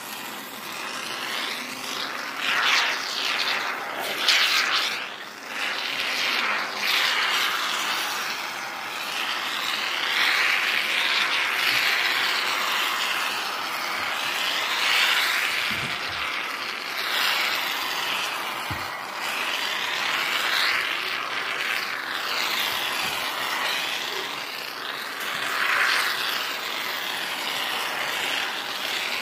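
Aerosol can of Great Stuff expanding polyurethane foam hissing as the foam is squirted out in beads, the hiss swelling and fading as the flow changes.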